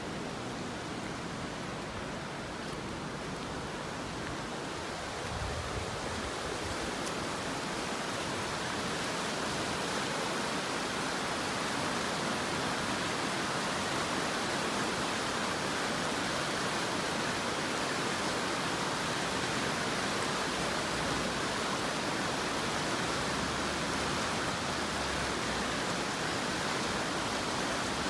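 Steady rush of flowing stream water, growing slightly louder over the first several seconds.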